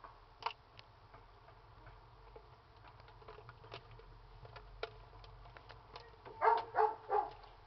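Faint, scattered crackling clicks from a burning Fritos corn chip, then four short high-pitched yelps, like a small dog's, near the end.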